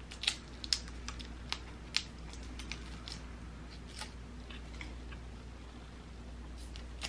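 Boiled shrimp shell crackling and snapping as fingers peel it: a scatter of sharp clicks, densest in the first two seconds, over a faint low hum.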